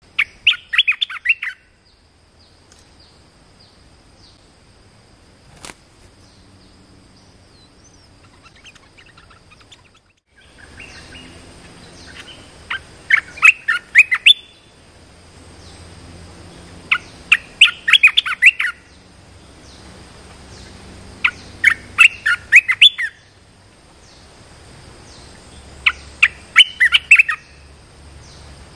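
A caged decoy songbird, which the title calls 'nok krong ta daeng' (red-eyed cage bird), sings short bursts of rapid chirping notes. There is one burst at the start and four more about every four seconds later on. Under it runs a faint, steady, high insect drone.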